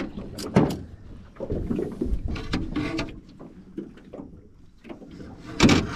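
Knocks and clunks against a small riveted boat's hull as a landing net and a freshly netted fish are handled aboard: a few sharp knocks early, some scraping, and louder knocks near the end.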